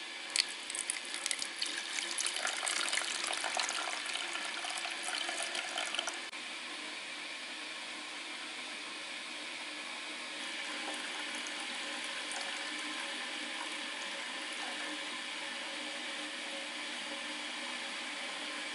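Water pouring and splashing unevenly for about six seconds, then stopping suddenly, leaving a steady hiss.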